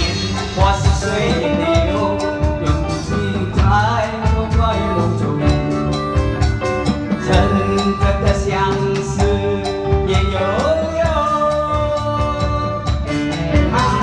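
A Chinese song sung over band accompaniment with a steady beat.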